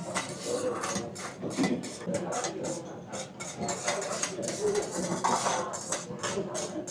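Metal utensils and dishes clinking and clattering in quick, uneven knocks, over the voices of people talking nearby.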